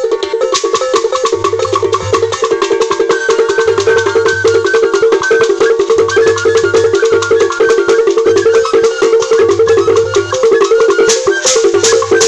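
Igbo ogene music: iron ogene gongs struck in a fast, dense rhythm with shaker rattles, over a low note pattern that repeats every couple of seconds.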